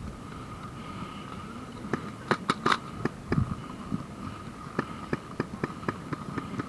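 Irregular sharp clicks and snaps: a cluster of loud ones about two seconds in, then a quicker run of lighter ones near the end, over a faint steady high hum.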